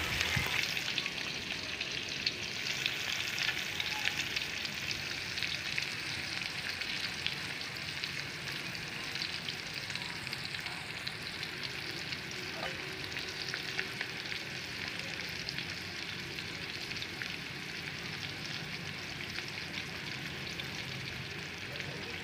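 Pork liver slices sizzling in hot oil in a pan: a steady crackling fry that eases slightly in loudness.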